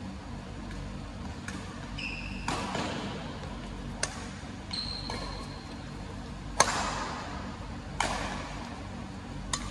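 Badminton rally: rackets smack a shuttlecock about every one and a half seconds, each hit echoing in the hall, the loudest about two-thirds of the way through. Two brief high squeaks of shoes on the court floor fall in between.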